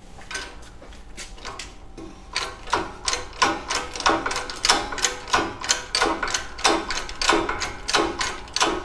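Hydraulic bottle-jack shop press being hand-pumped: short metallic clicks about three a second from about two seconds in, as the ram presses the brake adapter bushings into an aluminium Brembo caliper.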